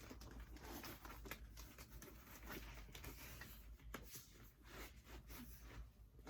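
Near silence with faint, irregular rustling and soft ticks of handling, as a sock and sneaker are pulled onto a foot.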